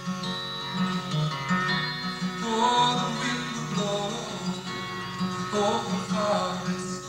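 Background music: a song with acoustic guitar.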